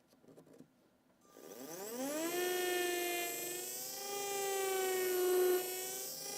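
Dental implant micromotor turning a 3 mm twist drill in a contra-angle handpiece, cutting the implant site in hard bone. The motor whine rises in pitch as it spins up about a second in, holds steady while drilling, then drops and stops near the end.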